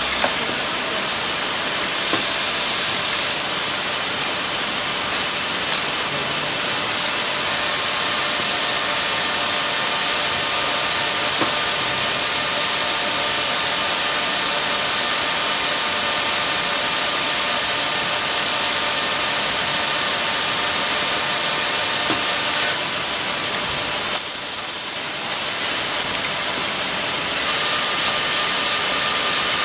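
Circular sock-knitting machine running: a steady high hiss with faint steady tones. A short, louder blast of air hiss comes about five seconds before the end.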